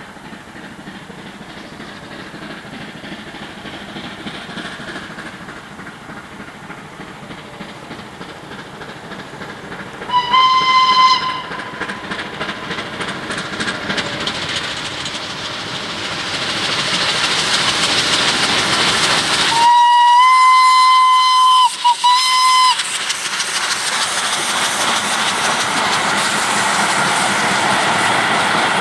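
Gr 740 steam locomotive working hard as it pulls a train away from a station and approaches, its exhaust puffing and hissing and growing steadily louder. Its steam whistle gives one short blast about ten seconds in, then a long blast and two quick toots near the twenty-second mark. Near the end the carriages rattle past, clicking over the rail joints.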